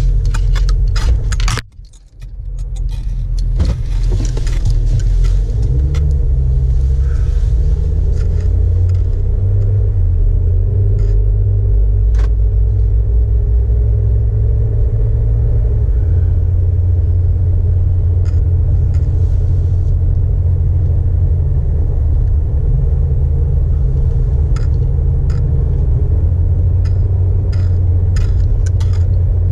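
Jeep Wrangler JK being driven: a steady, loud low engine and road rumble with scattered light clicks and rattles. The sound cuts out briefly about two seconds in, then returns.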